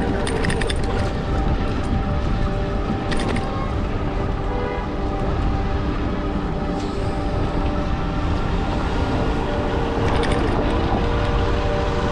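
Electric bicycle ride: wind rumbling over the microphone with road noise, over a steady hum of several tones, and brief rattles near the start, about three seconds in and about ten seconds in.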